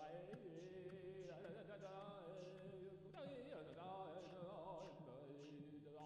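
Very faint vocal music, almost at silence: a voice singing with a wavering, bending melody over soft ticks about twice a second.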